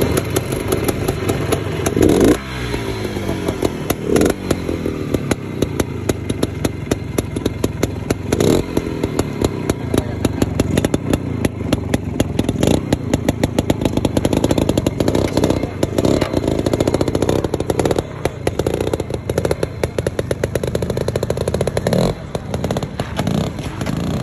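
Bultaco Sherpa T trials motorcycle's air-cooled single-cylinder two-stroke engine running at a crackling idle, blipped several times so that the revs rise sharply and fall back.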